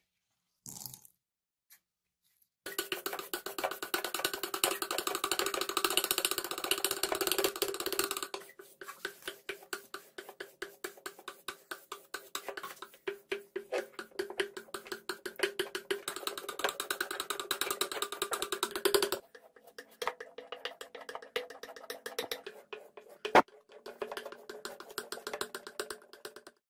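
Steel knife blade rubbed back and forth by hand on wet fine-grit wet/dry sandpaper laid on a flat plate, making a fast rasping scrape with a steady ring. It is dense and fast for the first few seconds, then turns into slower separate strokes, then fainter strokes with one sharp knock near the end.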